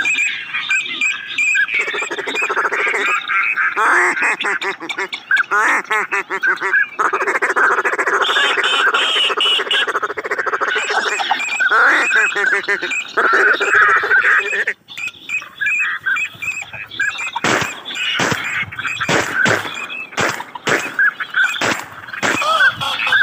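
Many ducks calling at once in a dense, continuous chorus of quacks. From about two-thirds of the way through, sharp knocks and rustles break in among the calls.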